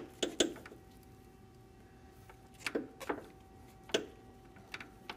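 Scattered sharp clicks and taps of metal clutch-cable parts being handled: a pair just after the start, then several more from about two and a half seconds on.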